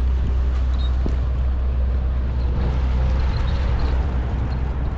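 Car on the move: a steady low road rumble with a light haze of noise above it, the rumble easing a little past three seconds in.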